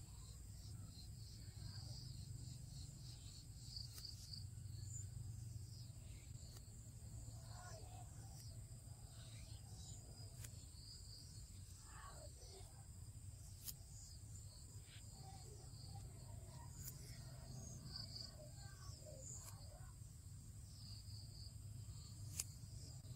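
Faint ambience: a steady high-pitched insect trill over a low hum, with scattered faint clicks and a few short chirps.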